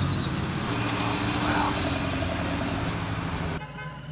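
Motor vehicle engine running steadily. The sound cuts off abruptly about three and a half seconds in, leaving quieter background.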